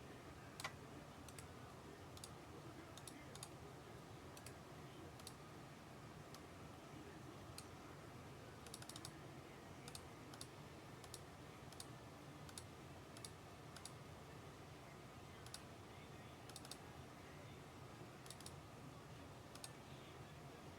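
Faint computer mouse and keyboard clicks, scattered irregularly and sometimes in quick pairs, over a low steady hum.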